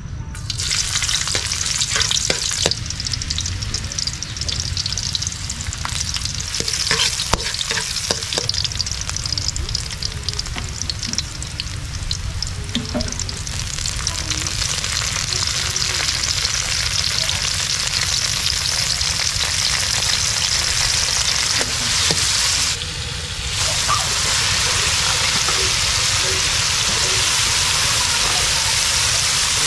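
Hot oil sizzling in a steel wok as onion, garlic and tomato fry and later sliced bitter gourd, stirred with a metal ladle that clicks and scrapes against the pan. The sizzle drops briefly about three quarters of the way through, then goes on steadily.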